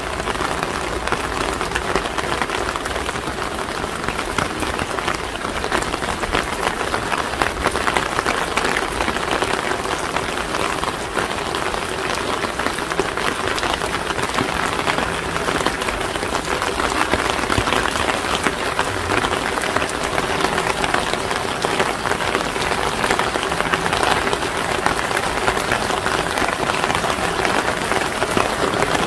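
Steady rain pattering on surfaces: a dense, even crackle of drops.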